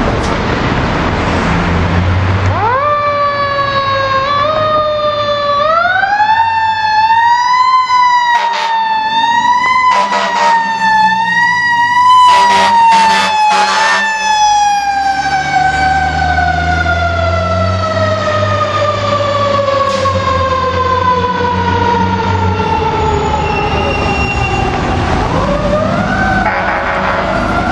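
Fire engine's Federal Q mechanical siren winding up and wailing, cut through by several air horn blasts as the engine passes. The siren then slowly winds down in one long falling tone and starts to rise again near the end.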